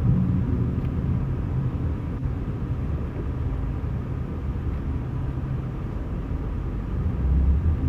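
Steady low outdoor rumble from amateur footage, with no distinct events, swelling slightly near the end.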